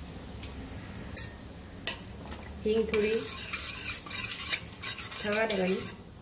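A metal spatula stirring and scraping in a stainless-steel kadai of hot oil in which carom seeds and asafoetida are crackling. Two sharp clinks come about one and two seconds in. From a little under three seconds in there is busy scraping and sizzling, with two short squeaks of metal on steel.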